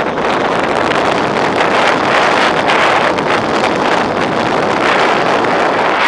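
Airflow rushing over the onboard camera's microphone on a gliding radio-controlled Duo Discus sailplane: a loud, steady rush of wind noise with no motor tone.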